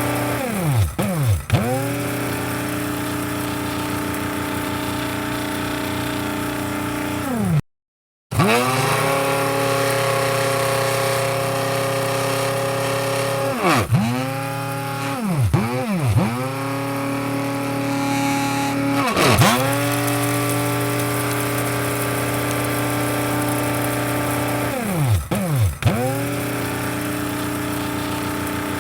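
Electric coffee grinder motor running with a steady whine. Its pitch briefly sags and recovers several times, and the sound cuts out for about half a second near the middle.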